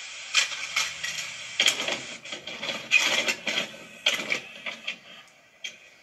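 VCR tape-loading sound effect: a steady hiss with repeated clicks and clunks of a tape mechanism, fading out over the last second or so.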